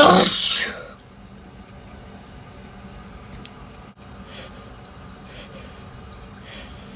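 A loud sneeze right at the start, under a second long, then the steady hiss of a running shower.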